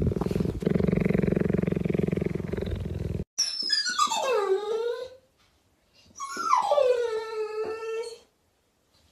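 A cheetah purring steadily, which cuts off after about three seconds. Then a pit bull-type dog gives two long whines, each sliding down in pitch and then holding low.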